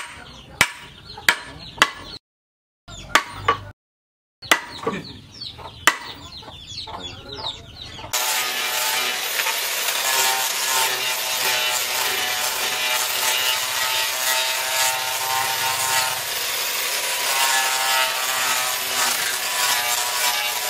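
A hammer striking the top of a wooden axe handle several times in separate blows, driving the forged axe head onto it. About eight seconds in, an electric angle grinder with a sanding disc starts up and runs steadily against the wooden handle, sanding it.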